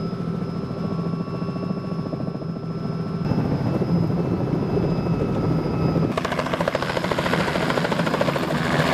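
Light helicopter's rotor and engine in flight, heard at first from inside the cabin. After a cut about six seconds in, it is heard from outside as it hovers low over the crater floor, with a louder rushing noise.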